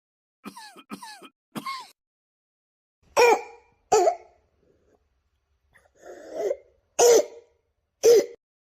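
A person coughing: three short, quieter sounds that slide down in pitch, then four loud coughs in two pairs about a second apart, with a softer breath between the pairs.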